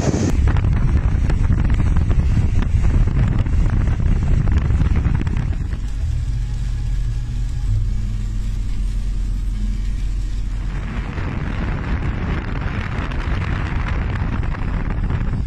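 Strong wind buffeting the microphone with a deep, continuous rumble. Midway a steady low hum sits under it for a few seconds, and a hissing rush comes in for the last few seconds.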